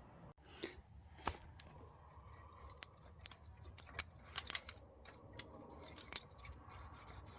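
Metal hand tools clicking and scraping on an engine's valve gear while the valve clearance is set with a wrench and feeler gauge: a run of sharp, irregular metallic clicks, busiest in the second half.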